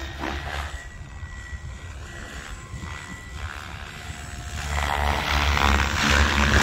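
Electric 700-size RC helicopter (SAB Kraken 700) in flight, its rotor blades and motor whine running steadily. The sound grows louder and fuller about five seconds in.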